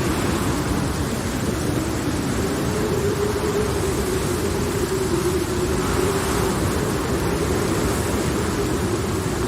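Steady thunderstorm-and-rain ambience: a continuous rushing noise with a low rumble, under one slowly wavering eerie drone tone.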